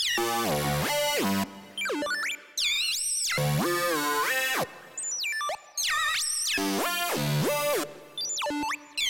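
Electronic techno track played on software synthesizers: sliding, swooping synth notes that bend up and down, some with a fast wobble, over deep bass notes, in short phrases broken by brief drops in loudness.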